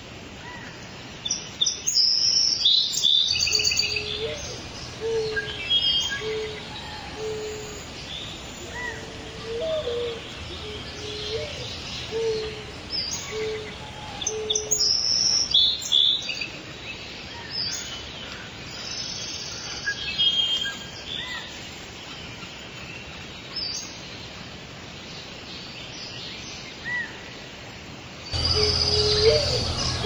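Small songbirds chirping and twittering in bursts, loudest near the start, around the middle and at the end. Under them a low hooting call repeats about once a second for the first half, a few of the calls ending in a rising hook.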